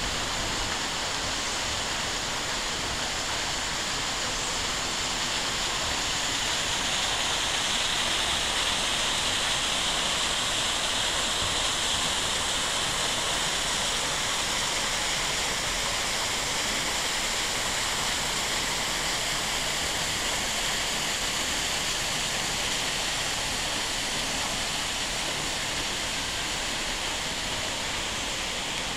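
Small waterfall tumbling down rocks, a steady, hissing rush of water.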